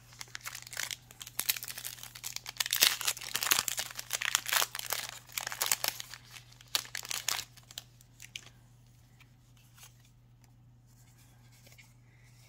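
Foil wrapper of a Pokémon Shining Fates booster pack being torn open and crinkled: dense crackling for about seven and a half seconds, then only a few faint rustles.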